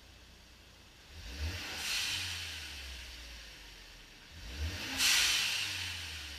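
Ford Focus ST's turbocharged four-cylinder blipped twice, each rev followed by the Turbosmart dual-port blow-off valve venting boost with a sudden hiss that fades over a second or so. The second blip and vent are louder.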